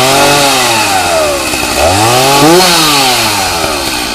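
Two-stroke chainsaw engine revved up twice, each rev rising and falling back, then dropping to idle near the end.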